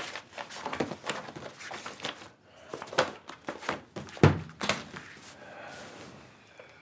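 Sheets of paper rustling and shuffling as they are gathered up, then a briefcase lid shut with a low thump a little over four seconds in, among a few sharp clicks.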